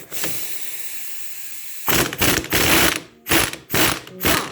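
Ratchet wrench working the top nut of a Lada Priora front strut mount, a run of ratcheting strokes starting about two seconds in: one longer stroke, then several short ones in quick succession.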